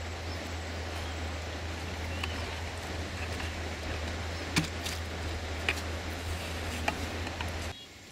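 Steady outdoor background noise with a low hum, faint bird chirps and a few sharp clicks; the sound drops off suddenly near the end.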